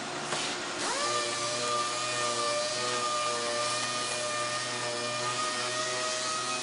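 A 12,000 RPM 6-inch random orbital sander with a 150-grit foam-backed disc spins up about a second in and then runs at a steady whine with a hiss, scuff-sanding carbon fiber.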